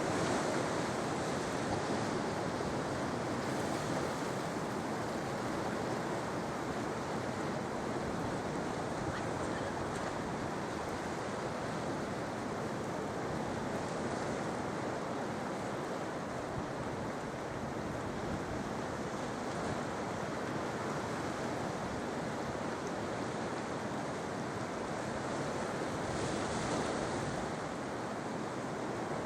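Sea surf washing onto the shore: a steady rushing wash of waves that swells slightly about four seconds in and again near the end.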